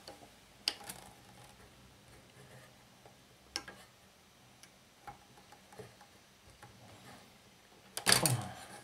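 Scattered small clicks and taps of a screwdriver working at a vintage desk fan's metal wire guard and plastic housing, the sharpest about three and a half seconds in. A man starts talking near the end.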